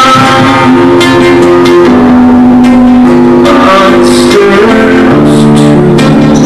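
Guitar music: an instrumental passage of a song, with chords played and left to ring, changing every second or so.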